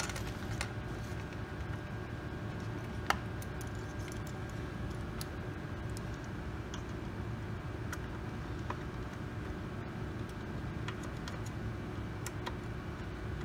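Light clicks and taps of small bolts and 3D-printed plastic parts being handled and fitted together by hand, with a sharper click about three seconds in, over a steady low hum.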